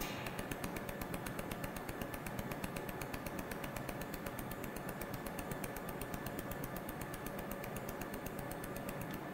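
ALPHA LASER pulsed laser welder firing as it lays a bead with 0.3 mm filler wire: a fast, even ticking, each laser pulse a sharp tap on the metal.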